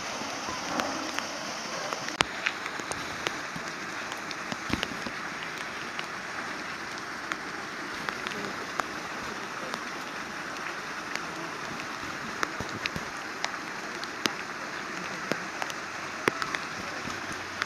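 Gentle steady rain falling on wet ground, with many irregular raindrop ticks.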